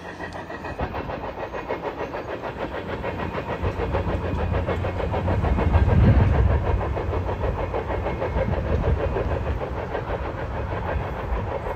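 Freight train's steel wheels clicking rapidly and evenly over the rails, with a low rumble underneath that is loudest about six seconds in.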